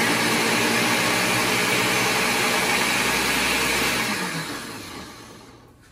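High-power countertop blender running at full speed on raw cauliflower with no water added. It is switched off about four seconds in and the motor winds down, its pitch falling as it slows.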